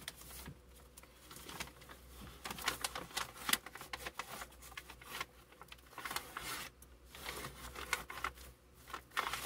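Brown paper shopping bag rustling and crinkling in irregular bursts as it is handled and pressed into a corner.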